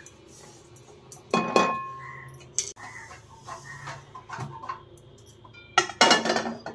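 Stainless-steel kadhai and metal spatula clanging and scraping as roasted sesame seeds are scraped out of the pan onto a plate: one loud ringing clang about a second and a half in, and a longer clatter near the end as the pan is set back down on the gas burner.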